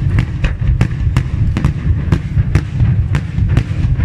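Daytime fireworks barrage: aerial shells bursting in coloured smoke, an irregular rapid string of sharp bangs, several a second, over a continuous low rumble.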